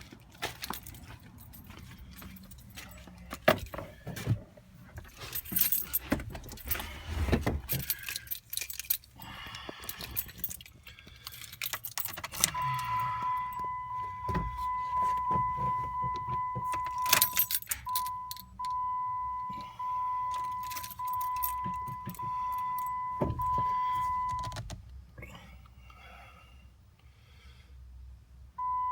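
Keys jangling and clicking, then about twelve seconds in a vehicle warning chime starts: one steady high tone for about five seconds, then broken into a run of beeps about a second each. The chime is a sign that the Jeep's electrics are live even though it won't start.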